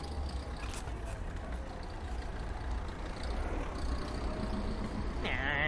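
Steady low rumble of wind and road noise while riding a bicycle on a city street, with a large vehicle going by. Near the end there is a short wavering, voice-like call.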